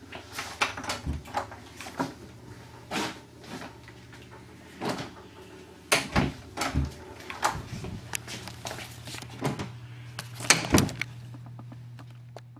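Door hardware being handled: irregular clicks, clunks and knocks, over a steady low hum.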